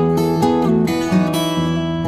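Background music: acoustic guitar strumming and plucking chords.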